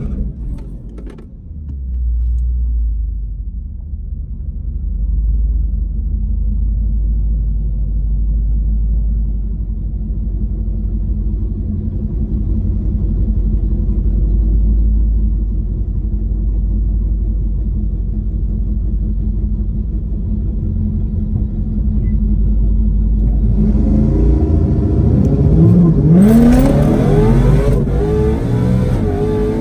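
Whipple-supercharged Mustang V8 running with a steady low rumble, then revving with rising and falling pitch sweeps for the last several seconds.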